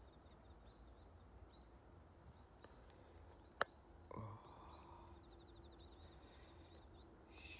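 Faint high chirps and a pulsed trill of calling wildlife, with one sharp click about three and a half seconds in.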